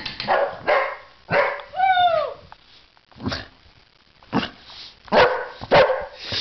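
Boxer dog barking in play: a string of short barks, with one longer, drawn-out call about two seconds in that rises and then falls in pitch, the boxer's "talking".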